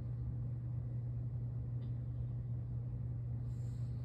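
A steady low hum, with a faint click about two seconds in and a brief faint rustle near the end as a mask is pulled over the head.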